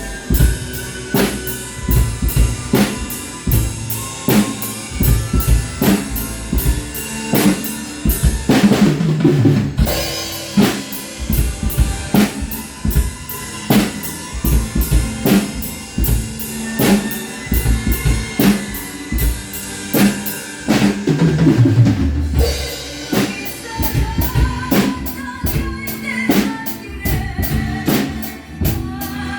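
Drum kit played along to a recorded backing song. It keeps a steady beat on bass drum, snare and cymbals, with tom fills falling in pitch about nine seconds in and again about twenty-one seconds in.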